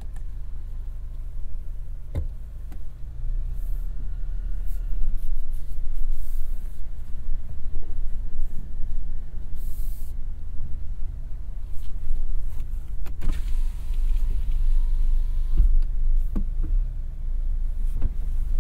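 Heard from inside the cab: the 2024 GMC Canyon AT4X AEV's 2.7-litre turbo inline-four and drivetrain giving a low, steady rumble as the truck crawls over rocks, with a few sharp knocks. A steady high tone sounds for about two seconds past the middle.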